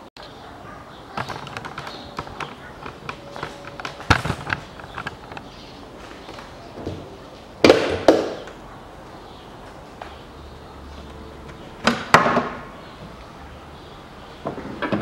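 Bonnet of a Volkswagen Scirocco being opened: footsteps and small handling knocks, with a sharp knock about four seconds in. A loud clunk about eight seconds in comes as the bonnet latch is released, and another loud clunk about four seconds later as the bonnet is lifted.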